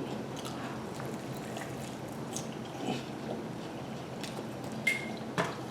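A person biting and chewing honey chicken wings: soft mouth clicks, with two sharper ticks about a second apart near the end.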